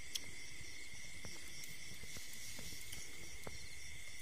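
Night insects chirring in a steady chorus, with a higher trill pulsing about three times a second, and a few faint clicks.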